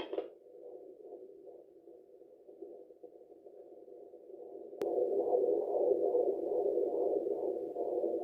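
Handheld fetal Doppler monitor's speaker giving the pulsing whoosh of a heartbeat picked up through the belly. A click comes a little past halfway, and after it the sound is much louder.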